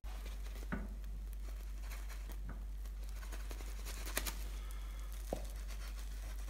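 A wooden spatula cuts through a cooked omelette and scrapes on the frying pan: a few light scrapes and clicks over a steady low hum.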